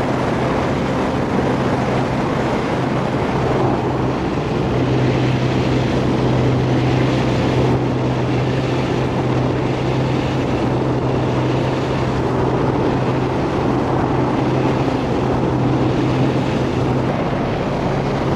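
Outboard motor running steadily, pushing an inflatable boat across calm water: a constant low engine hum under a hiss of water and wind.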